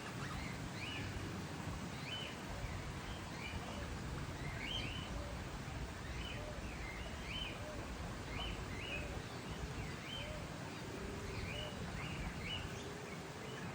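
Eastern rosella calling: short, sharp chattering notes repeated about once or twice a second over a steady background hiss, with a few fainter low calls in between.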